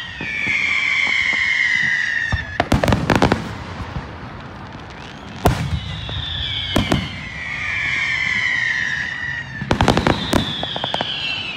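Aerial fireworks: two long whistles falling in pitch, each followed by a rapid volley of sharp crackling bangs, with a single loud bang between them about five and a half seconds in.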